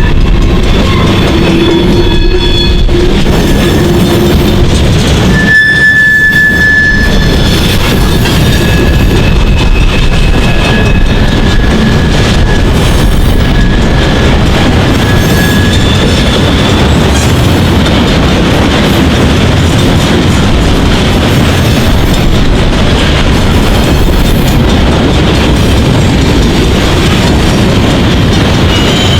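Freight train cars rolling past, a loud steady rumble of wheels on rail. A thin high wheel squeal comes in about five seconds in and fades out after about fifteen seconds.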